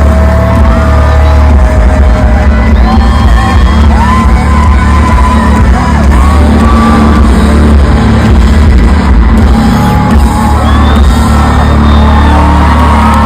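Loud live concert music heard from within the crowd, with heavy bass and many voices singing along and whooping. The sound is distorted by its loudness.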